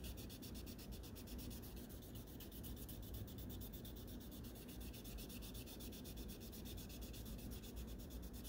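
Fine 6000-grit wet sandpaper rubbed by hand side to side across the 2K clear coat of a plastic scale-model car body: a faint, steady rubbing as it cuts out the coarser 4000-grit scratches.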